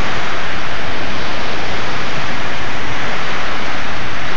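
Small waves washing onto a beach, heard as a steady, loud rushing hiss.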